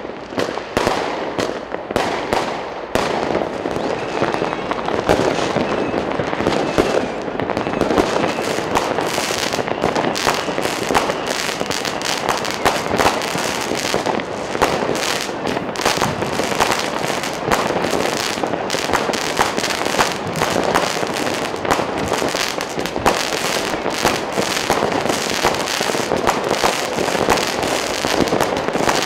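New Year's Eve fireworks and firecrackers going off all around in a dense, continuous barrage of cracks and bangs, with no pause for the whole stretch.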